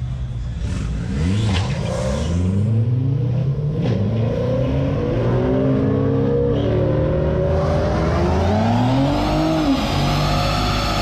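Pickup truck engine revved repeatedly, its pitch sweeping up and falling back several times. In the last few seconds the rear tyres spin and squeal in a burnout.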